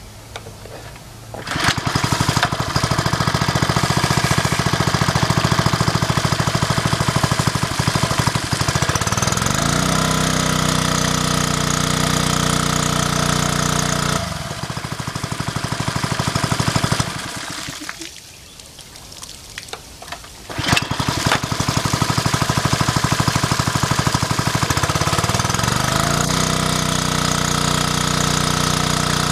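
Small engine of a Koshin KM-25F engine water pump, pull-started about a second and a half in and running fast. It picks up speed about ten seconds in while pumping water out of the outlet. It slows and stops about halfway through, then is started again a few seconds later and speeds back up.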